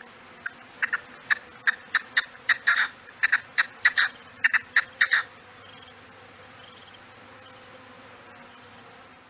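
A partridge or grouse giving a rapid series of short, sharp clucking calls, about two or three a second, which stop about five seconds in. A faint steady background hum remains after the calls end.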